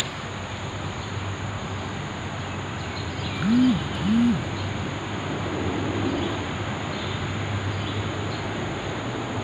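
Two short, low cooing calls from a bird, one just after the other, about three and a half seconds in, over a steady background rumble and hiss.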